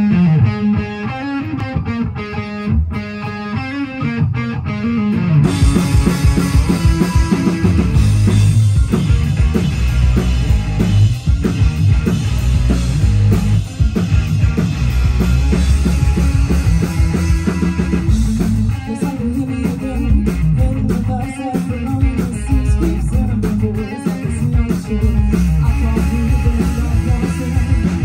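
Live rock band playing loud through a PA: an electric guitar plays alone at first, then drums and the rest of the band come in about five seconds in and play on together.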